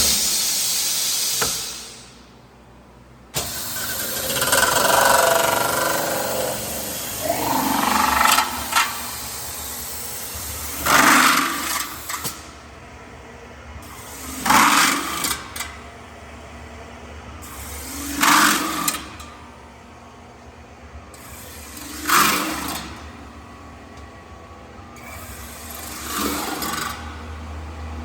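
A CNC metal-spinning lathe forming sheet metal. A sequence of forming passes swells and fades about every three and a half to four seconds, with a rubbing, scraping sound on each pass.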